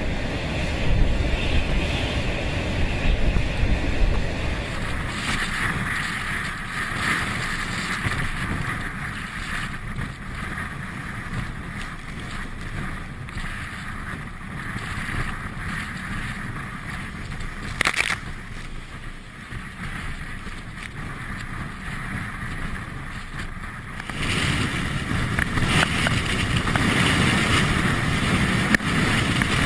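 Storm wind buffeting the microphone over heavy surf breaking on rocks, a continuous rough rushing, with one sharp knock about eighteen seconds in.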